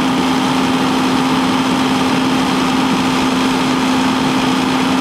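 Fire engine running steadily: an unbroken engine drone with a strong constant hum under it.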